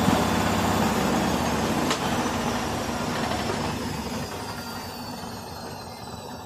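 LG washing machine drum spinning down: the steady machine noise fades slowly as the drum slows, and a high whine falls in pitch. One sharp click about two seconds in.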